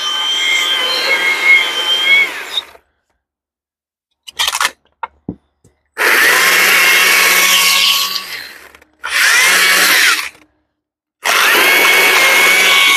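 Battery-powered chainsaw cutting into a wooden block in trigger bursts. It cuts for almost three seconds, then stops dead. A few light knocks come in the pause. Two shorter cuts follow around six and nine seconds in, and it starts cutting again near the end.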